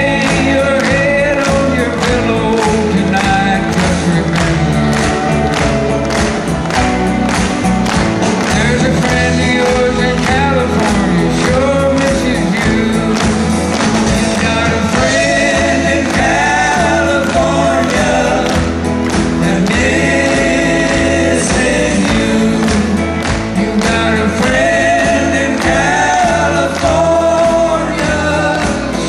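Live country band playing a song with a voice singing lead: acoustic and electric guitars, fiddle and a steady drum beat.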